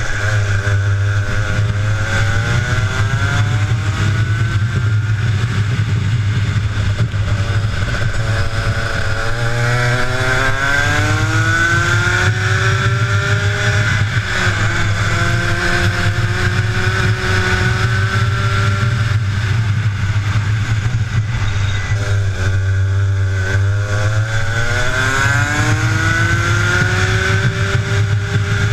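Two-stroke kart engine heard from onboard, its pitch climbing steadily as it accelerates and falling back sharply as the driver lifts for the corners, about four times, over a steady low drone.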